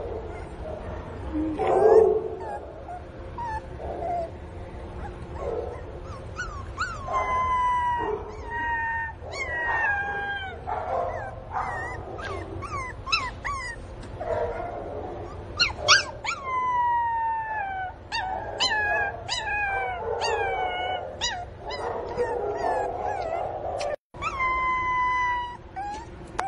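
Pinscher puppy crying loudly, a distress cry at missing its mother: soft whimpers at first, then from about six seconds in a long run of high-pitched yelping cries, each sliding down in pitch.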